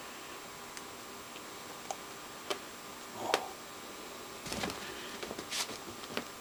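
Scattered light clicks and taps, then a cluster of scuffling and rustling from about four and a half seconds in, as cats pounce and paw with their claws at a fabric blanket on carpet.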